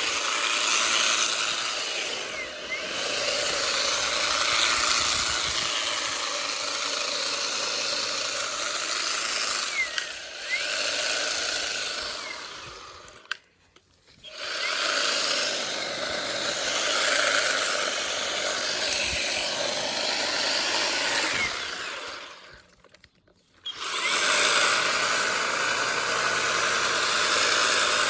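Ego cordless hedge-trimmer attachment running, its reciprocating blades cutting through thick Nandina stalks. It goes quiet twice for about a second, then runs again.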